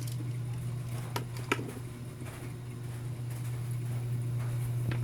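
Steady low electrical hum, with a few light clicks and taps from small parts and wires being handled during a microphone repair, two of them about a second in.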